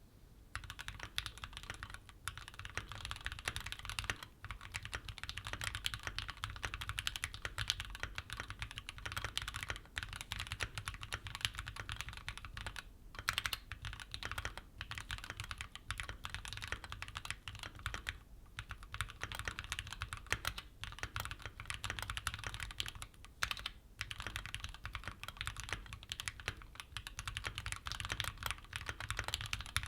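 Continuous fast typing on a Keychron Q5 aluminium mechanical keyboard fitted with Gateron G Pro Red linear switches: a dense stream of key clacks with a few brief pauses.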